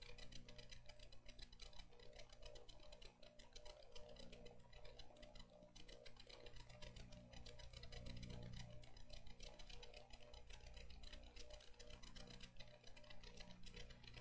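Near silence: a faint steady low hum with light, irregular ticks and clicks.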